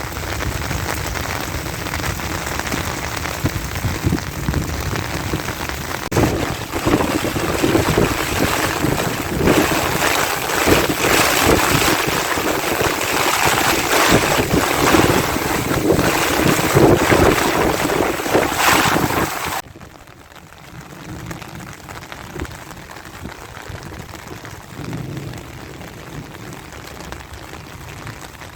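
Heavy rain pouring down. About two-thirds of the way through it cuts off sharply to a quieter, lighter rain.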